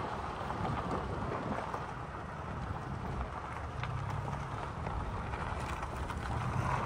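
Toyota Tacoma pickup rolling slowly down a dirt track: a steady low rumble of the engine and tyres on packed dirt and small stones, with a few faint ticks of gravel and wind on the microphone.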